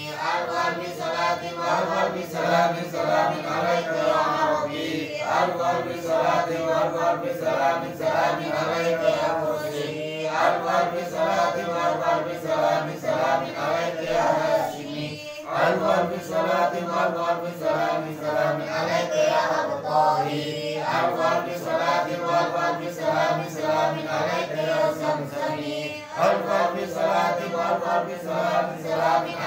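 A small group of women chanting an Arabic sholawat (devotional salutations on the Prophet) in unison, in phrases of about five seconds with short breaks for breath between them.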